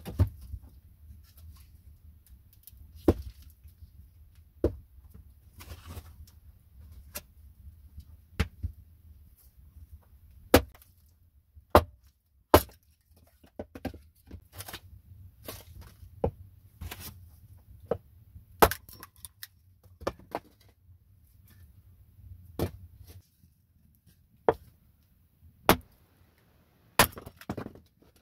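A hatchet splitting firewood into kindling on a wooden chopping block: about twenty sharp chops at uneven intervals.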